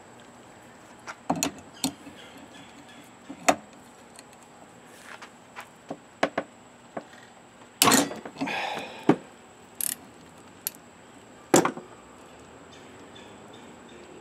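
Steel hand tools knocking and clinking against a motorcycle fork held in a vise, as a ratchet and socket and then a large adjustable wrench are fitted to the nut at its bottom end. Scattered sharp clicks and knocks, the loudest about eight seconds in and again near twelve seconds, with a short rasp just after the first of these.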